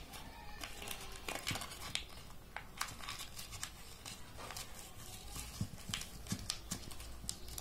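Hands pressing and smoothing adhesive tape onto a sandal upper and handling the sandal: faint, irregular small clicks and crinkles.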